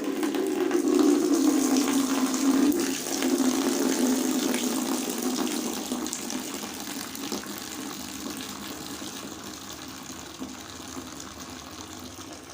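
Water running into a container with liquid soap in it to make soapy water, heavy at first and easing off after about five or six seconds.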